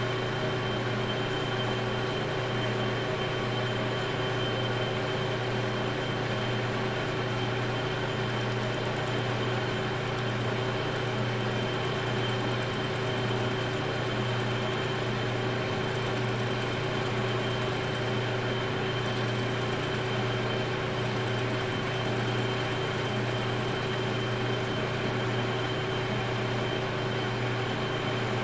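Metal lathe running at a steady speed, a brass valve part spinning in its chuck while the tool takes a light facing cut across the sealing surface: a steady hum with a faint high whine, holding the same pitch throughout.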